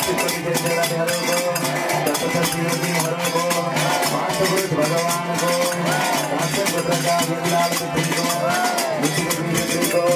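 Devotional aarti music: a harmonium holds steady chords under a fast, dense run of ringing, bell-like percussion, with many hands clapping along.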